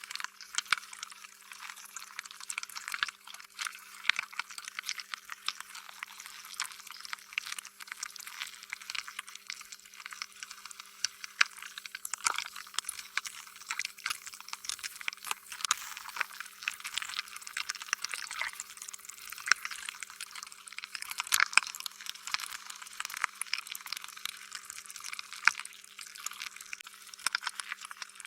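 Slime being squished and stretched: a continuous, irregular run of sticky, squishy clicks and pops, with no pause.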